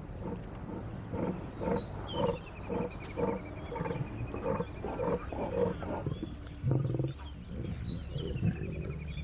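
Lions growling over their food while feeding, with a run of short rhythmic growls through the middle and a louder growl near the end. Birds chirp and trill in the background.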